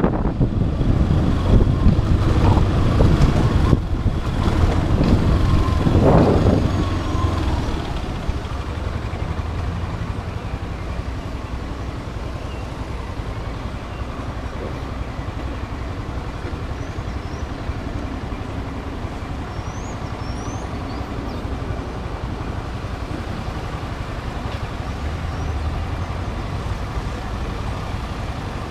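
Motorcycle riding in city traffic: the engine and wind noise on the mounted camera's microphone, louder and surging for the first several seconds, then settling to a steadier, quieter run from about eight seconds in.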